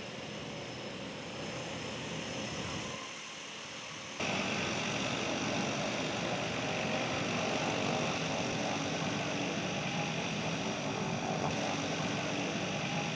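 A twin-engine floatplane's propeller engines drone steadily as it skims across the harbour water. The drone starts abruptly and louder about four seconds in, after a quieter stretch of steady harbour background.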